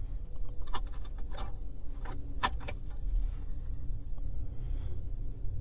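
A few sharp clicks and light knocks of objects being handled in a car, over a steady low rumble in the car cabin.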